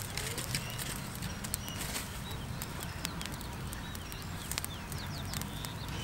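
Small open fire of dry grass and twigs crackling and popping as it is poked with a stick, with scattered sharp snaps. Birds chirp briefly now and then.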